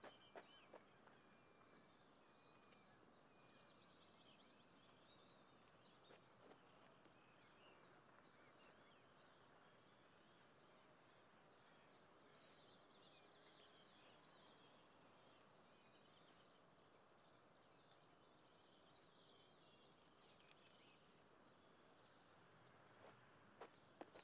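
Very faint outdoor ambience: a steady hiss with many small high-pitched chirps and trills from birds. A few soft clicks come near the start and again near the end.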